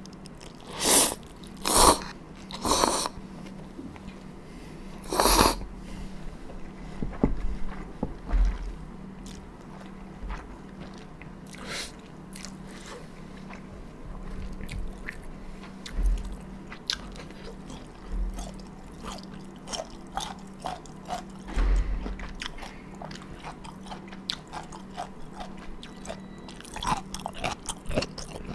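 A person eating dumpling soup and buckwheat noodles close to the microphone: four loud slurps in the first six seconds, then steady chewing and wet smacking with many small clicks for the rest.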